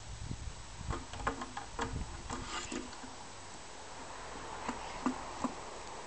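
Light knocks and rattles of a small plastic watering can as a goldendoodle puppy pulls it off a wooden garden bench and carries it in its mouth. The knocks come in quick clusters, with a few sharper ones about five seconds in.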